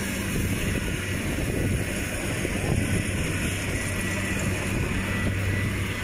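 Diesel engine of rice-harvesting farm machinery running steadily at a constant speed, a continuous low hum with a rough, noisy edge.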